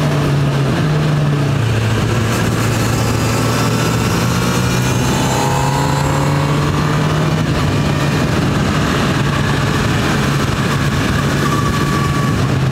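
Motorcycle engine running at a steady road speed under wind and road noise on the bike-mounted camera. The engine note drops to a lower pitch about a second and a half in.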